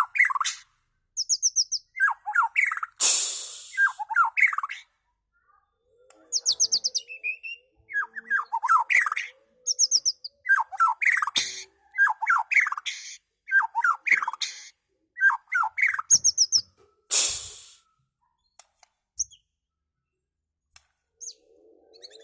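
White-rumped shama (murai batu) singing in separate bursts of varied phrases, some with fast high trills, plus a couple of harsh, noisy calls. It pauses briefly between phrases and falls quiet for a few seconds near the end.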